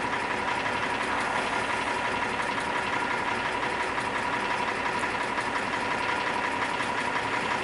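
2003 Jeep Wrangler TJ's 4.0-litre straight-six idling steadily with a rapid knock and tick. The owner thinks it may be a broken piston skirt or a bad piston rather than a crank bearing.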